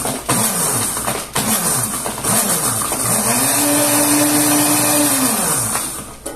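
Countertop blender crushing ice cubes in lemon-and-orange juice: the motor is pulsed in short bursts about once a second, each winding down in pitch, then run for about three seconds at a steady whine before winding down and stopping near the end.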